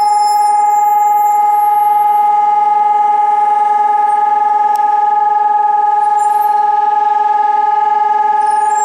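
Civil-defence warning siren sounding one loud, steady, unwavering tone during a test of the city's public warning system.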